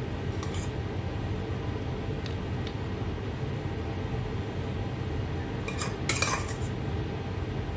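A metal spoon clinking and scraping against a stainless steel bowl and a ceramic plate while sauce and seafood are spooned onto pasta. There are a few light taps early, then a louder clatter of scrapes about six seconds in, over a steady low hum.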